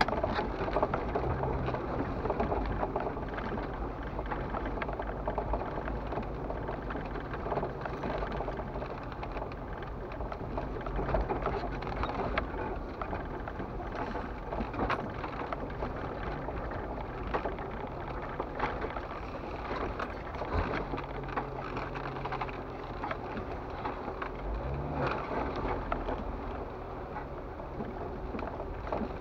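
Jeep Wrangler TJ's engine running at low trail speed, heard from inside the cab, with tyres crunching over a rocky dirt trail and the body and gear rattling. The engine pitch rises briefly near the end.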